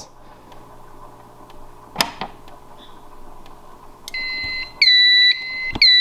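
A sharp click as an STI emergency push-button station is pressed, about two seconds in. About two seconds later the fire alarm control panel starts beeping, a high pulsing tone that gets louder near the end: the panel signalling the new alarm.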